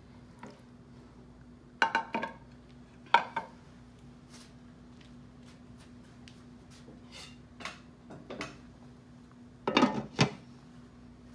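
Kitchen utensils clinking and clattering against a dish in a few short bursts. The loudest clusters come about two seconds in, about three seconds in, and near the end, with a few light taps between, over a steady low hum.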